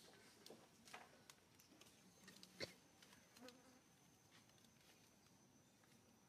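Near silence: faint outdoor ambience with a few soft clicks in the first three seconds and a faint, high, steady whine.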